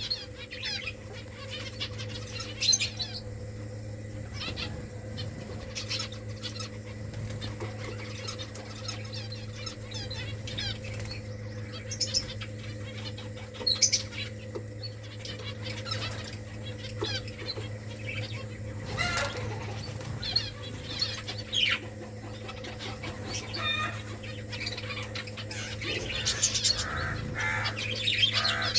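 Pet finches chirping in short, scattered calls, with fluttering wings, and the chirps grow busier near the end. A steady low hum runs underneath.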